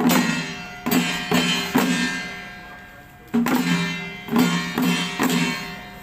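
Ringing metal percussion of a Taiwanese temple procession troupe, gongs and cymbals struck in a loose rhythm, each stroke ringing and fading away. A quick run of strokes, a pause of about a second and a half with the ringing dying down, then another run about midway.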